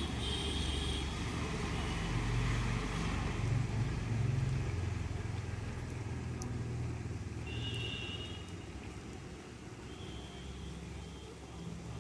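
A low engine-like rumble, strongest in the first few seconds and fading away through the second half. Two short high-pitched tones come at the start and again about two-thirds of the way through.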